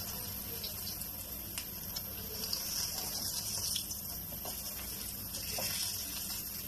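Besan-battered pointed gourd slices frying in hot oil in a wok, a steady sizzling hiss, with a few light clicks of a wire skimmer and spoon against the pan.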